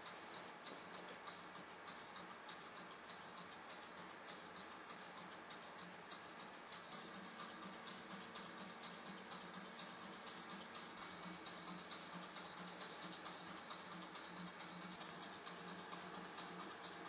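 Model twin-cylinder steam engine running, with an even mechanical ticking of about three ticks a second over a faint steady hum. The ticks grow sharper and louder about seven seconds in.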